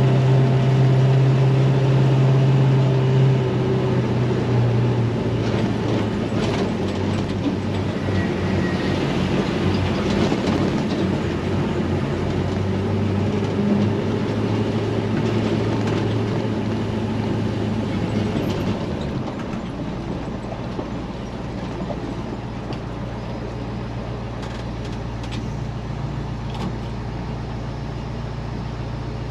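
International 4600 dump truck's naturally aspirated 7.3 L IDI V8 diesel running steadily while the loaded truck is driven, with road rumble under it. The engine note drops slightly about four seconds in. From about two-thirds of the way through it turns quieter and steadier.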